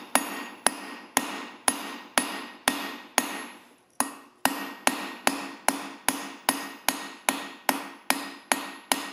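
Hammer striking a steel rivet on an anvil with its rounded face, cold-riveting the pivot of a pair of forged calipers: a steady run of ringing metal blows, about two to three a second, with a short pause about four seconds in.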